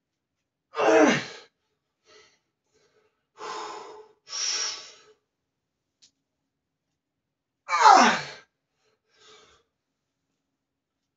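A man grunting with effort while squatting a heavy barbell: two loud strained grunts that fall in pitch, about seven seconds apart, with hard breaths in and out between them.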